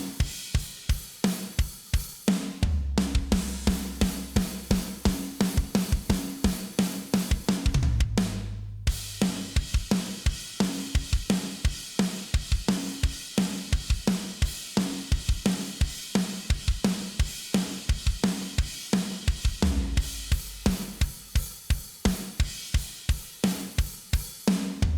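Sampled rock drum kit from a virtual drum library playing a fast, driving beat: kick, snare, hi-hat and crash cymbals, with two brief breaks. A low held note sits under the drums at times.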